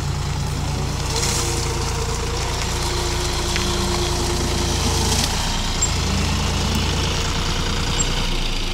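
John Deere 5050 D tractor's three-cylinder diesel engine running steadily under load as the 4WD tractor works its way through deep mud; the engine note eases slightly near the end.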